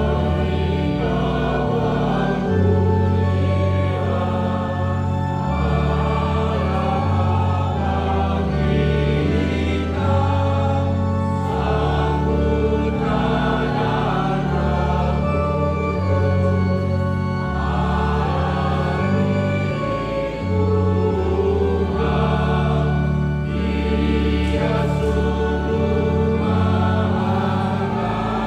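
Mixed church choir of men and women singing a hymn together, over accompaniment of long held low notes that change in steps.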